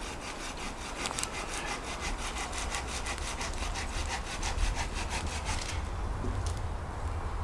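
Hand saw cutting wood in quick, even strokes that stop shortly before the end.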